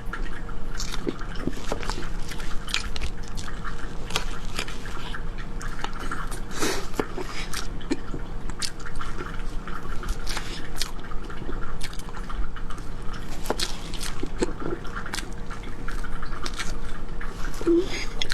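Close-miked wet eating sounds of a person chewing soft Oreo cheesecake: irregular smacking clicks and squelchy mouth noises.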